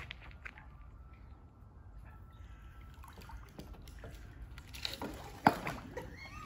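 Water splashing and dripping, with scattered small ticks and a sharp knock about five and a half seconds in.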